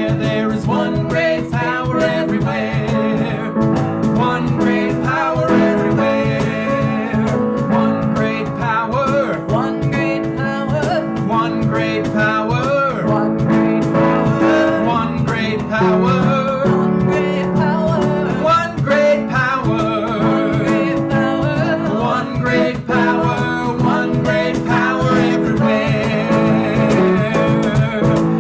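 A song performed live by singers to a plucked acoustic guitar accompaniment, heard through a video call.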